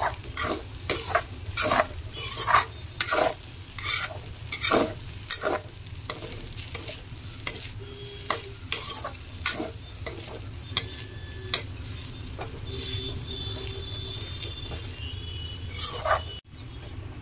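A spatula scraping and knocking against a metal kadai while stir-frying rice, with a light sizzle underneath. The strokes come quickly, about two a second, then thin out in the second half, over a low steady hum.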